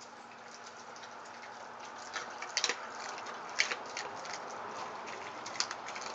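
Great Dane puppy chewing raw chicken back, the bones giving irregular sharp cracks and crunches from about two seconds in, three of them louder than the rest.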